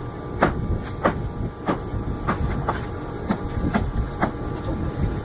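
Hammer striking concrete masonry over and over, about two sharp blows a second, over a steady background hum.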